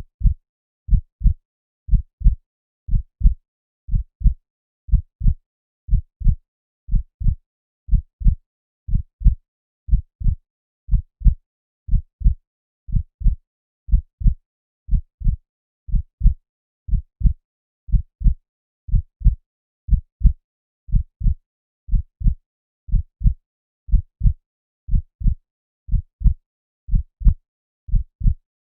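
Human heartbeat heard as through a stethoscope: a steady, regular lub-dub, two short low thumps a third of a second apart, repeating about once a second (roughly 60 beats a minute), with nothing heard between the beats.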